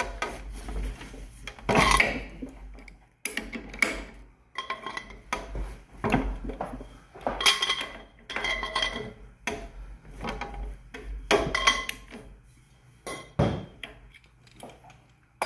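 Irregular metallic clinks and knocks, about a dozen, some ringing briefly: small metal parts and tools being handled on a brass pressure-washer pump head and its steel frame during valve removal.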